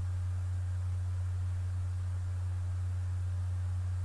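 Steady low electrical hum at one pitch, with a faint hiss behind it.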